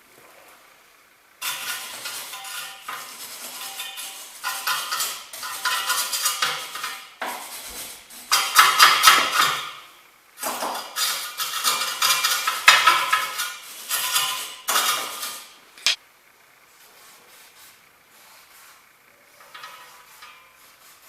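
Metal tools and parts clinking, clattering and scraping against each other in irregular bursts, ending with a sharp click about sixteen seconds in.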